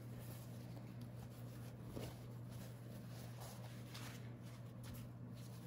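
Faint, soft rustling of a paper towel being patted onto damp watercolor paper and lifted off, over a steady low hum.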